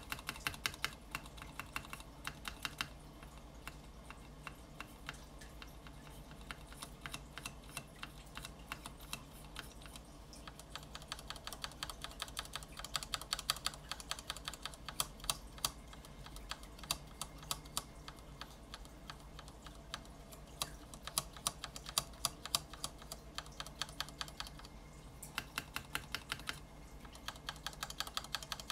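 Stock stabilizers of a Monstargear XO v2 keyboard, with no switches fitted, pressed over and over under the spacebar and a shift keycap, giving runs of rapid clacks with short pauses between them. This is the stabilizers after lubrication, their wires greased with Permatex.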